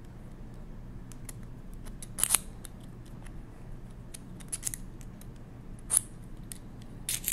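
Small steel calculator parts (springs, levers and bushings of a 1920s Monroe model K mechanical calculator) clicking and clinking as they are slid off an axle and laid on the table. Scattered light clicks, with sharper ones about two, six and seven seconds in.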